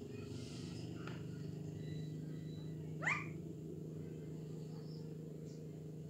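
Alexandrine parakeet giving one sharp squawk that rises steeply in pitch about three seconds in, after a fainter short call near the start, over a steady low hum.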